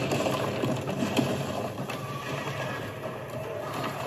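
Dense, steady noisy din with scattered knocks, from the soundtrack of a television battle scene.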